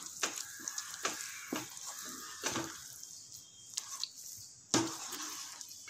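Spatula stirring thick semolina kesari in a nonstick kadai, with irregular scrapes against the pan and a light sizzle from the ghee just added.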